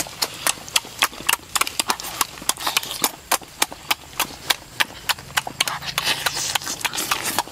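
Close-up eating sounds of chicken wings being bitten and chewed: wet lip smacks and mouth clicks, several a second in an irregular run.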